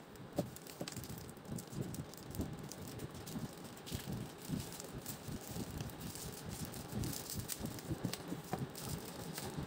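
Clear plastic packaging crinkling and rustling as it is handled, with scattered small clicks and taps.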